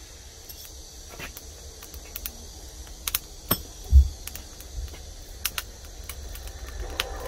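Scattered sharp clicks and pops from burning charcoal in a small brick forge, with one dull thump about four seconds in. A steadier rushing noise rises near the end.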